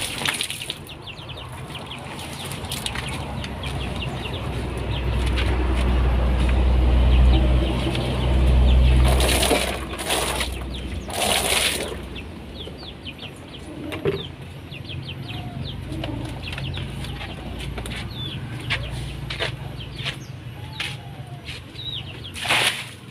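Outdoor ambience: a low wind rumble on the microphone that swells through the first half, with a few sharp gusts. Short high bird chirps run throughout, and a few lower calls come in the second half.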